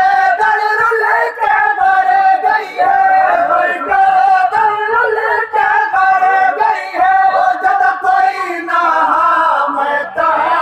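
Noha, a Shia mourning lament, sung by a crowd of men in unison behind a lead reciter. It comes in repeating phrases, each holding a long note, about one every two seconds.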